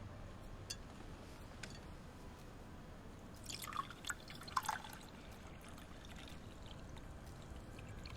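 Faint room noise, then a short run of liquid dripping and pouring sounds about three and a half to five seconds in.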